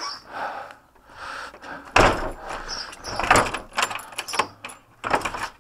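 Wooden door being worked and pulled shut, its lever handle and frame giving several sudden knocks and rattles, the loudest about two seconds in and another near the end.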